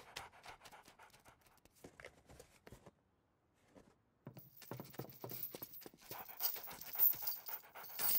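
A pit bull panting in quick, rhythmic breaths, starting about four seconds in after a moment of near silence. Faint scuffling sounds before it.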